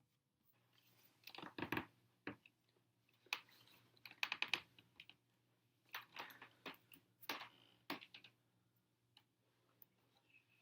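Soft clicks and taps coming in irregular clusters, several times over the span.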